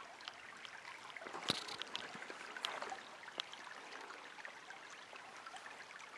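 Faint trickle of a shallow, rocky stream, with a few soft clicks scattered through, the most noticeable about a second and a half in.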